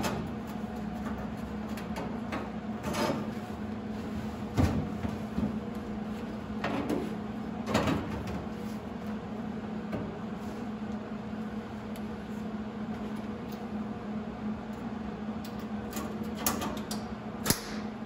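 Sheet-metal floor-pan patch being fitted and tack-welded into a car floor: scattered metal knocks and clunks over a steady low hum. Near the end come a few short, sharp bursts of welding as the first tacks go in.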